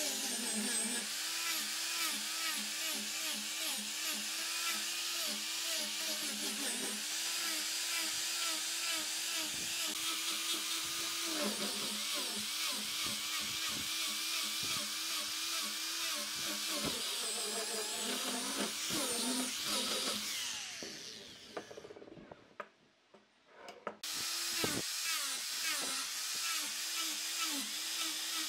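Angle grinder with a sanding disc running against wood, its motor pitch wavering up and down as it is pressed into the work. About twenty seconds in it winds down and stops, then starts up again about two seconds later.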